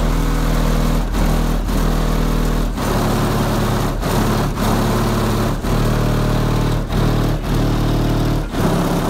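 Loud, bass-heavy music from a car audio system of two Crossfire XSV2 18-inch subwoofers on a Sundown NS1 amplifier, heard from outside the vehicle. Deep sustained bass notes are broken by a steady beat.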